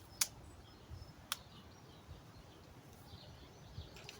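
Quiet woodland ambience with a few faint bird chirps, broken by two sharp clicks about a second apart near the start.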